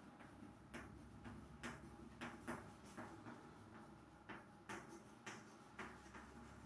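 Chalk striking and writing on a chalkboard: faint, irregular taps, about two a second.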